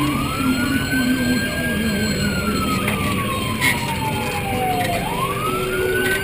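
A siren winding up quickly to a high wail, holding, then sliding slowly down in pitch, before climbing back up again about five seconds in.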